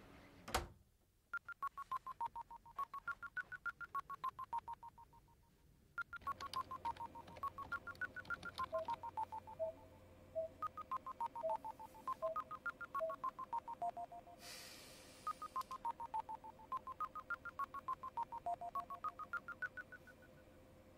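A single sharp knock, like a door shutting, about half a second in, then long fast runs of touch-tone (DTMF) dialing tones, several short beeps a second, in sequences broken by short pauses. A faint steady tone and hum join about six seconds in.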